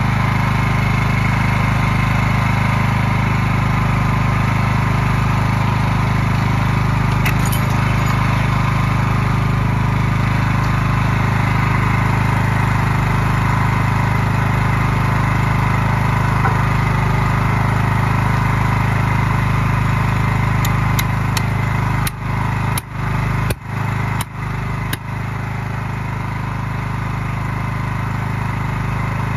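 Small gas engine of a trailer-mounted hydraulic log splitter running steadily, with a few brief dips in level about three-quarters of the way through.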